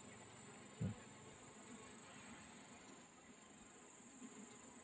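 Faint buzzing of honeybees in an opened wooden hive box, under a steady high-pitched whine, with one soft thump about a second in.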